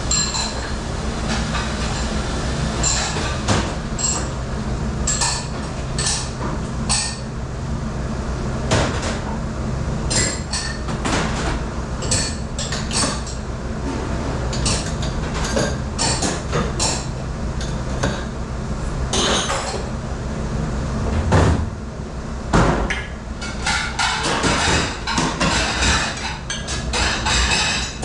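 Dishes and utensils clattering and clinking in a commercial dish room, many sharp knocks in quick succession over a steady machine hum, with a couple of louder knocks about three quarters of the way through.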